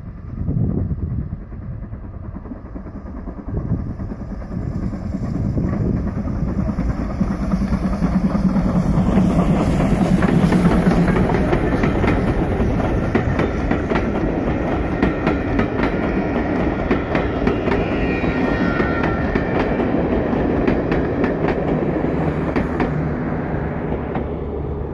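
Steam-hauled passenger train approaching and passing: the locomotive grows louder to a peak about ten seconds in, then a long rake of coaches rolls by with a steady clickety-clack of wheels over rail joints, easing off slightly near the end.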